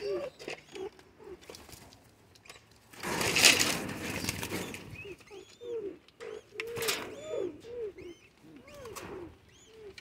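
Pigeons cooing repeatedly in short, arching calls while crowding around to feed, with a loud rustle of wings and bodies about three seconds in and another briefly near seven seconds.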